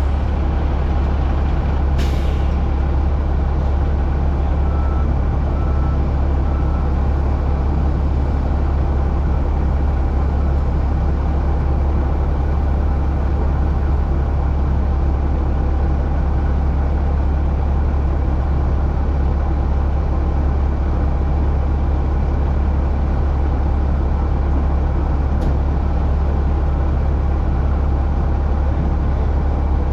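Heavy dump truck's diesel engine running steadily with a deep, even drone. A brief sharp sound comes about two seconds in.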